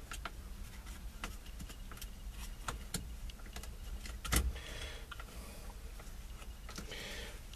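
Scattered small clicks and clinks of hand tools and metal parts being handled while a steering column is taken apart, with one louder knock about four and a half seconds in and brief soft rustling after it and again near the end.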